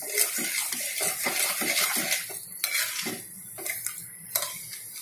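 A metal slotted spoon scraping and clinking against an aluminium kadhai while stirring sugar and cardamom into water for sugar syrup. The scraping is irregular, with several sharper clinks.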